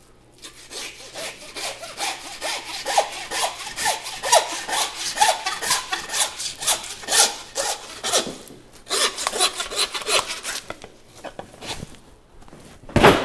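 Meat handsaw cutting through a beef hind quarter's bone, quick back-and-forth strokes that pause about eight seconds in and pick up again briefly. A single loud thump near the end.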